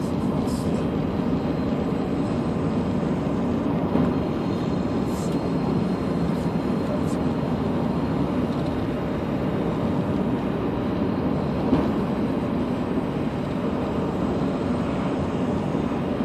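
Steady engine and tyre noise of a car driving along a road, heard from inside the cabin.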